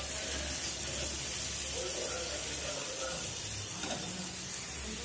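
Onions, garlic and chili paste frying in oil in an aluminium karahi, sizzling steadily as they are stirred with a metal spatula.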